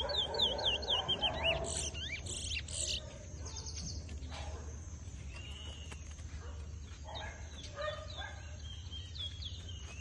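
Caged towa-towa (large-billed seed finch) singing its song in a bird race: a rapid run of sweeping, whistled notes in the first three seconds, then quieter, more scattered phrases with a few more near the end.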